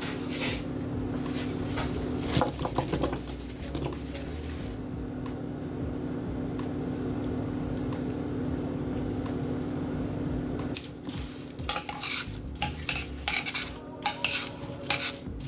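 Metal utensil clinking and scraping against a dish while food is stirred, in bursts near the start and again in the last few seconds, over a steady low hum.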